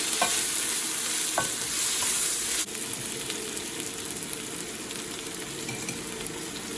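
Turmeric-dusted masala sizzling as it fries in hot oil in a pan while being stirred, with a few short scrapes of the spatula near the start. The sizzle drops to a quieter level partway through.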